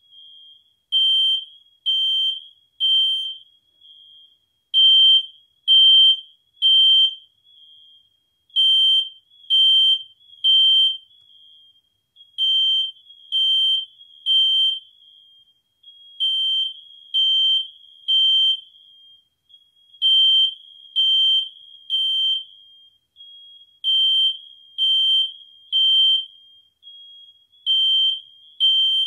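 Smoke alarm sounding in smoke: a high-pitched beep in groups of three, about one beep a second with a short pause between groups, the standard temporal-three evacuation pattern that signals smoke or fire. It repeats over and over.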